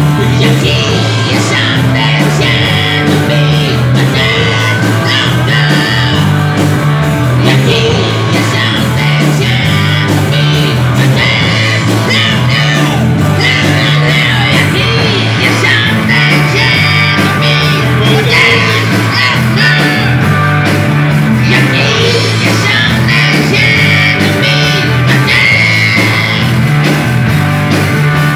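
Live rock band playing loudly: electric guitar and drums with shifting low bass notes, and a singer's voice over them.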